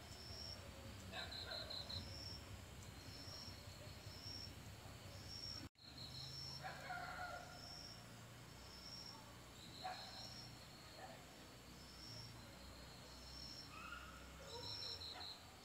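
Faint night insects: a short, high cricket-like chirp repeating evenly about every two-thirds of a second, with a few quick trills a little lower in pitch now and then. The sound cuts out for an instant about six seconds in.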